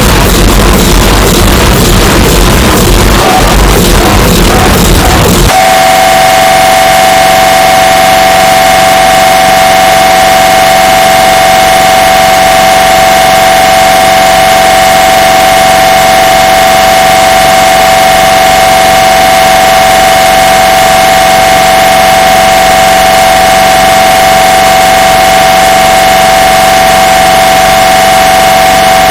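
A loud, heavily distorted noisy blast for about the first five seconds. It then switches abruptly to an MRI scanner's steady high-pitched buzz, boosted until it distorts.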